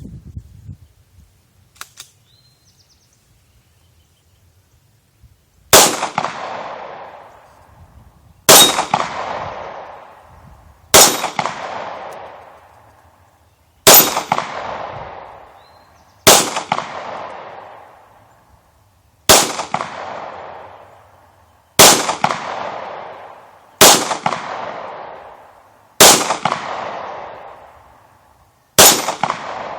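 Glock 23 .40-calibre pistol fired ten times at a slow, steady pace, one shot every two to three seconds, beginning about six seconds in. Each shot is a sharp crack followed by a trailing echo that fades over about two seconds.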